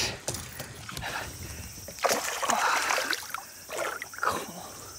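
A hooked bass splashing and thrashing at the water's surface beside the boat as it is brought in to be landed, in uneven bursts, the longest about two seconds in.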